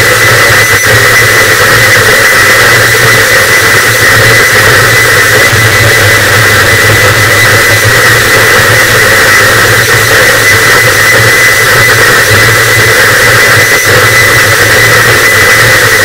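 Harsh noise wall: a very loud, unchanging wall of heavily distorted static with no breaks, a thin steady high tone riding on top and a steady low rumble underneath.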